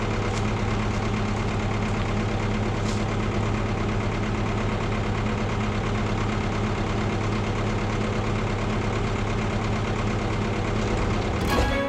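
1999 Kato CR100 crane's diesel engine idling steadily. Music comes in near the end.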